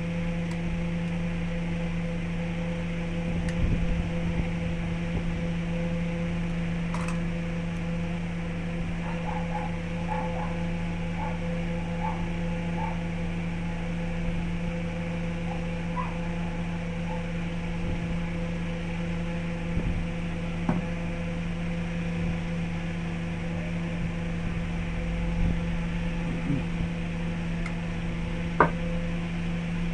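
Electric motor of a wood lathe running with a steady hum, with a few light ticks and one short sharp tap near the end.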